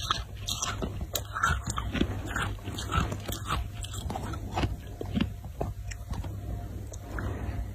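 Fingernails scratching and digging into packed snow: irregular crisp crunching scrapes, several a second.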